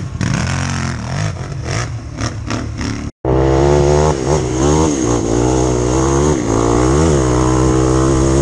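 Quad bike (ATV) engine running with changing throttle. After a sudden cut about three seconds in, a louder engine note runs steadily with short blips of throttle.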